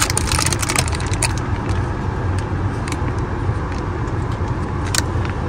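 Steady low rumble inside a car's cabin, with a plastic snack packet crinkling and crackling during the first second or so and once more near the end.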